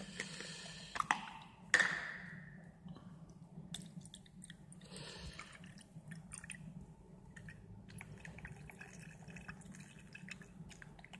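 Distilled water poured through a glass funnel into a glass volumetric flask, faintly trickling and dripping with many small ticks. There is a sharper knock about two seconds in.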